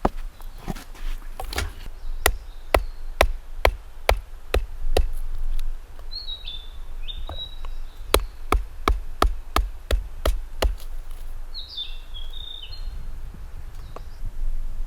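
A series of sharp knocks at about two a second, in two runs with a pause between, and a bird giving short chirping calls twice, in the pause and near the end.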